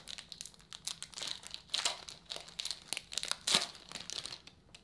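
Foil-lined wrapper of a 2019 Bowman baseball card pack being torn open and peeled back by hand, crinkling in a run of irregular crackles, loudest about two and three and a half seconds in.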